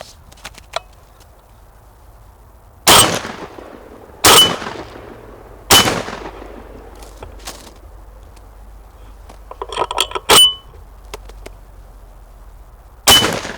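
Shotgun fired close to a gun-mounted camera: three loud shots about a second and a half apart, each with a ringing tail. About ten seconds in, a quick run of metallic clicks ends in a sharp clack, and one more shot comes near the end.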